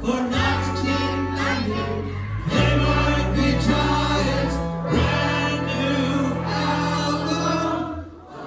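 Live rock band with horns playing a choir-like sung anthem: group vocals over held low chords. The music dips briefly in level near the end.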